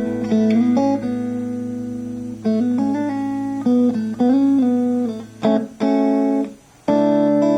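Electric guitar played through a Yamaha HR 1000 with distortion. A held low note rings under a lead line with bent, sliding notes. After about five and a half seconds the playing changes to short, choppy chords with gaps between them.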